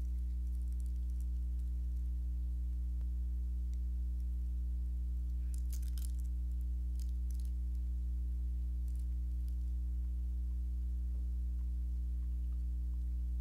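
Steady low electrical hum with its overtones, unchanging throughout, typical of mains hum in a sound system's audio feed. A few faint rustles or ticks come about six seconds in.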